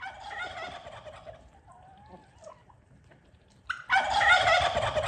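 Domestic turkey gobbling twice: a rapid warbling call at the start, and a louder one about four seconds in. Softer bird calls come between.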